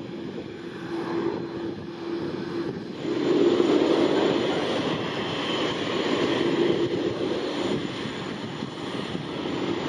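Business-jet turbofan engines. First a Bombardier Global 6000 climbs away after takeoff with a steady hum; then, about three seconds in, louder and steady jet engine noise comes from an Embraer Legacy 600 on approach to land.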